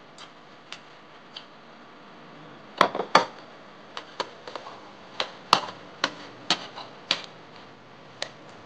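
Metal spoon and fork clinking and scraping against a plate and bowl while eating: a dozen or so sharp, irregular taps, the loudest clustered about three seconds in and again between five and seven seconds, over a faint steady room hiss.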